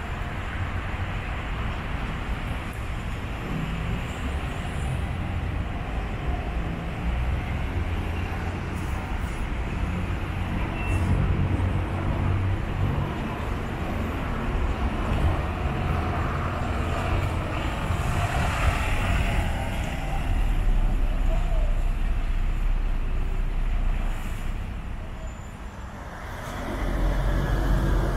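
Bus engines running, a steady low rumble mixed with traffic noise. It dips briefly near the end and then swells again.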